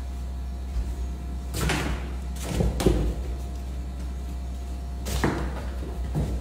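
A few dull thumps and knocks in a small hard-floored room, the loudest about three seconds in, over a steady low hum.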